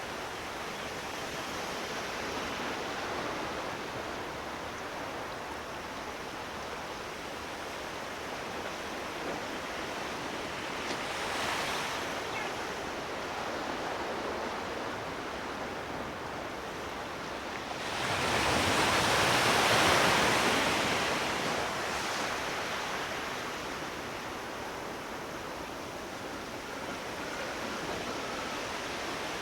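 Sea waves washing in steadily, with one louder wave breaking and washing up about two-thirds of the way through.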